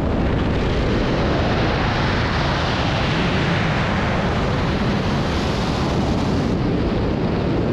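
Freefall wind rushing over the microphone of a skydiver's body-worn camera: a loud, steady rush of air with no change in pitch.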